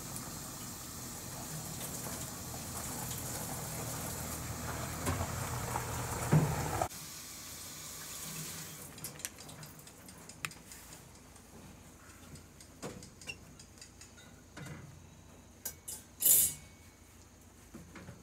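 A steady rushing noise that cuts off suddenly about seven seconds in. After it come soft clicks and handling sounds as seasoning is rubbed onto a raw whole chicken in a metal pot, with one brief hissing shake near the end.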